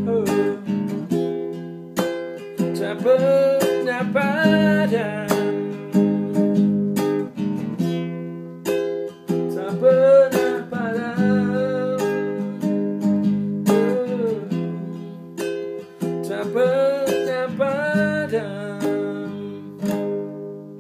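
Acoustic guitar playing the closing bars of a pop ballad, with a man's voice singing along without words in a few places. The playing stops right at the end.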